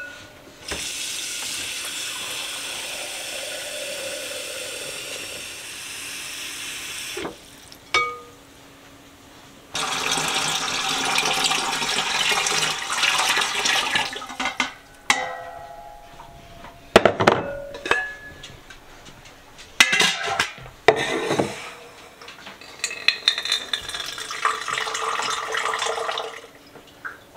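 Water running from a kitchen faucet into a glass bowl, then a short ringing glass clink. Water is poured with a steady rush, the stainless steel lid of a Royal Berkey water filter clanks several times, and another stretch of running water follows.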